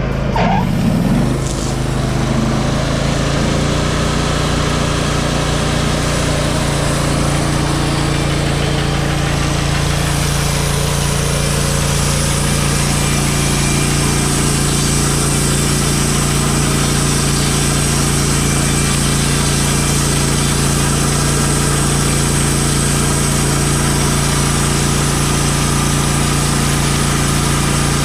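Portable sawmill's engine revving up about a second in, then running steadily at speed while the mill saws a pine log, with a little more hiss joining from about ten seconds in.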